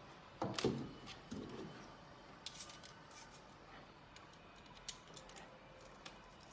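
Small plastic clicks and knocks from handling a jacket cooling fan and plugging its cable in, with a couple of louder handling knocks in the first second and a half and sparse light clicks after.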